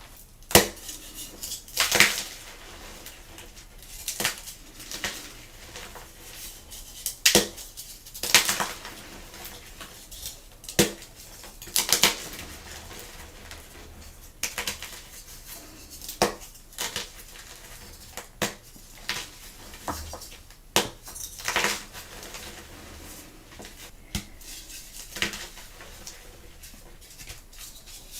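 Blocks of gym chalk being crushed, giving irregular sharp crunches roughly every one to two seconds with a crumbly rustle between them.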